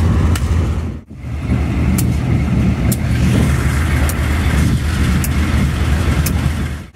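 Steady rumble of a moving diesel-hauled ballast train heard from aboard, the locomotive and hopper wagons running along the track, with light clicks roughly once a second. The sound drops out briefly about a second in.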